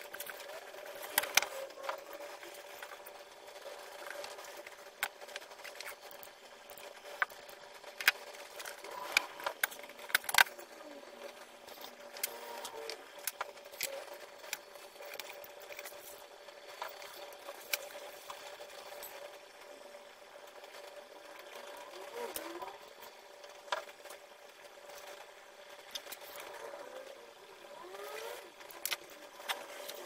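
Small tools, screws and metal parts clicking and knocking on a wooden workbench during hand assembly, the sharpest knocks in the first ten seconds, over a steady hum.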